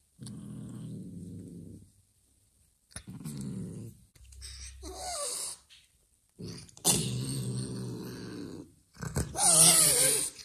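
Mother cat growling at a foster kitten in several long low rumbles with short pauses between them, warning it off. A wavering higher cry rises over the growl around five seconds, and near the end comes the loudest part, a hiss with a yowl as she turns on the kitten.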